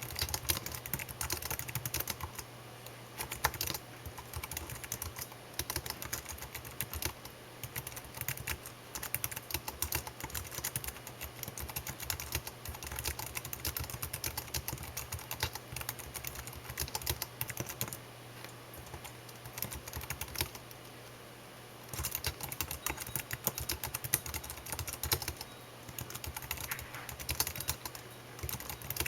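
Typing on a computer keyboard: a steady run of key clicks, with a pause of about two seconds a little past two-thirds of the way through.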